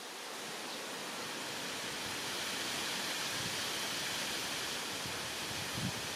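A steady, even hiss of outdoor noise that grows slightly louder over the first couple of seconds, with a faint low thump near the end.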